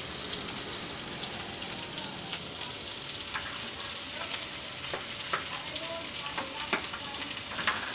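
Mushrooms frying and sizzling in a pan of sautéed garlic and onion, with a steady hiss. A metal spatula scrapes and taps against the plate and pan, giving scattered sharp clicks.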